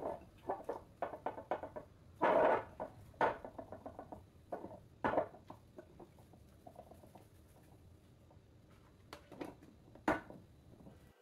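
Wet sourdough dough being stretched and folded by hand in a bowl: a run of short, irregular sticky squelches, the loudest about two seconds in.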